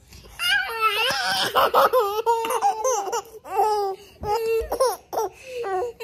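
A baby laughing in a string of short, high-pitched bursts.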